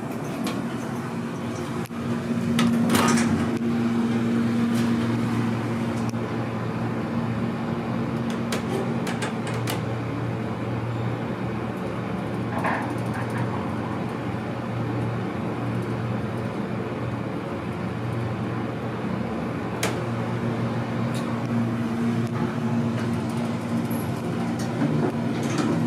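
Hydraulic passenger elevator running, a steady low hum from the machinery. There is a knock about two to three seconds in and a few light clicks.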